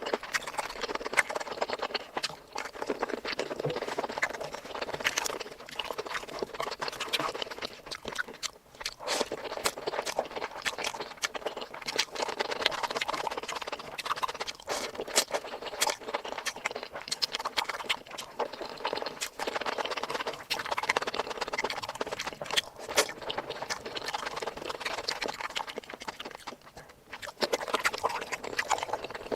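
Close-miked eating sounds: chewing with wet mouth clicks and lip smacks, an irregular run of small crackles that keeps going without a break.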